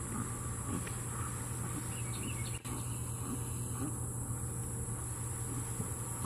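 Steady high-pitched drone of summer insects with a low steady hum underneath, a few faint chirps about two seconds in and a brief click soon after.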